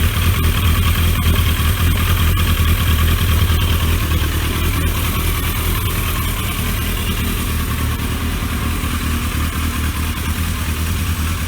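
1983 Yamaha 650 Seca Turbo's four-cylinder carbureted engine running steadily at idle, sounding smooth.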